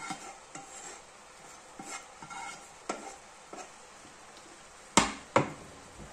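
A spatula scraping fried onion and spices out of a nonstick frying pan into a pot of red cabbage, with light scrapes and taps. About five seconds in come two sharp knocks as the frying pan is set down on the glass-ceramic hob.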